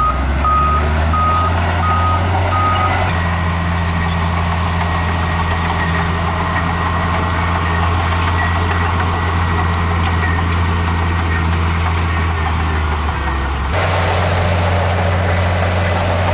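Heavy diesel earthmoving machinery running steadily, with a reversing alarm beeping about five times in the first three seconds. The engine note shifts abruptly near the end.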